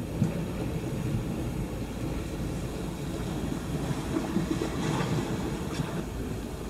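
Steady low rumble of seaside ambience: wind on the microphone and waves against the shore rocks, with one faint bump just after the start.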